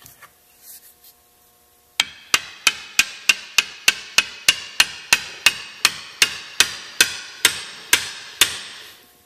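Hammer tapping a chilled John Deere 318 mower-deck spindle down into the new greased bearings of its hub, a press fit. About twenty evenly spaced taps, roughly three a second, each ringing briefly, begin about two seconds in after some light handling noise.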